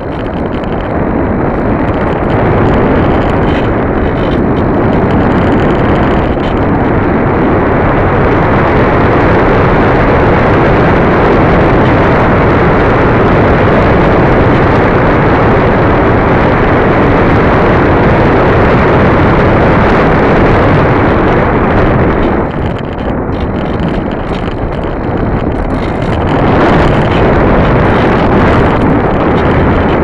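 Loud, steady wind rush over the microphone of an 808 keychain camera mounted on the tail of a small RC foam plane in flight. It eases for a few seconds about three-quarters of the way through, then comes back.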